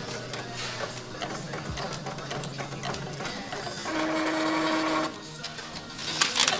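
Printer running, with mechanical clatter and clicks and a steady motor whine for about a second near the middle.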